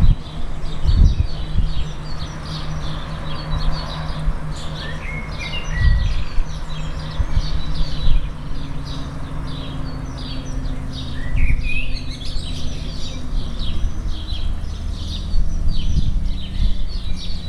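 Ducklings peeping: a steady chorus of many short, high peeps, with a couple of lower sliding calls, over a low steady hum and occasional bumps.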